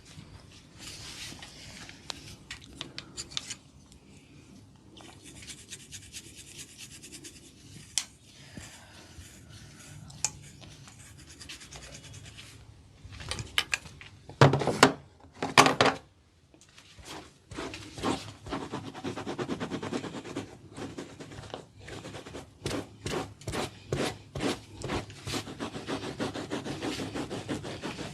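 Hands rubbing and scratching an oiled scalp and hair, a scratchy rubbing broken by short clicks. A few loud bursts come about halfway through, and quick repeated strokes fill the last third.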